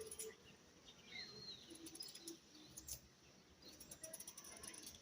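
Near silence, with a few faint bird chirps about a second in and scattered light clicks.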